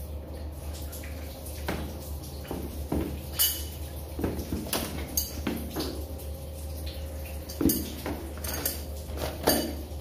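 Metal hand tools clinking and knocking as they are handled, in scattered sharp taps, over a steady low hum.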